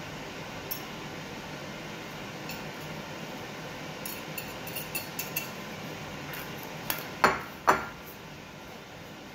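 Small ticks as spices are tipped from a ceramic plate into a glass mixing bowl, then two sharp clinks about half a second apart near the end as ceramic knocks against the glass bowl. A steady hiss runs underneath.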